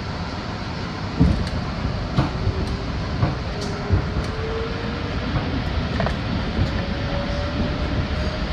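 An R62A subway car's Westinghouse DC traction motors whining as the train picks up speed, the whine rising slowly in pitch over a steady rumble of wheels on rail. Several sharp knocks come from the wheels striking rail joints.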